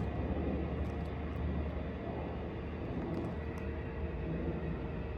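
Steady low background rumble and hum, with a few faint ticks.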